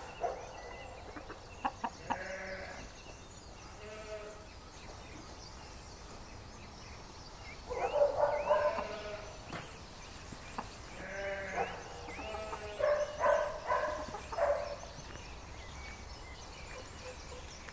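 Farmyard animals calling: separate pitched calls, a few in the first seconds, then louder clusters about eight seconds in and again between eleven and fifteen seconds, over a faint steady background.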